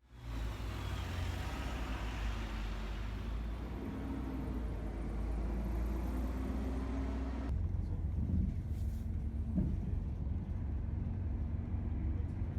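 Car on the move: a steady low rumble of engine and tyres under a broad hiss. The hiss drops away suddenly about seven seconds in while the rumble carries on.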